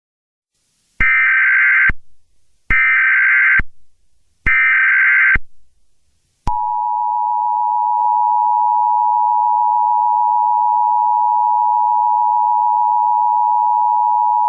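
Emergency Alert System broadcast tones: three short, loud bursts of the SAME digital header's warbling data tones, about a second apart, then the steady two-tone EAS attention signal held for about eight seconds.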